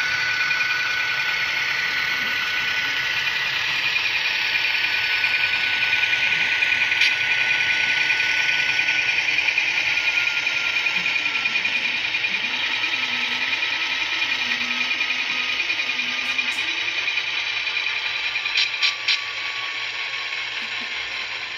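Kato AC4400CW model diesel locomotive running along the layout track, its electric motor whining and its wheels rattling on the rails. The whine slides slowly lower, and a few sharp clicks come near the end.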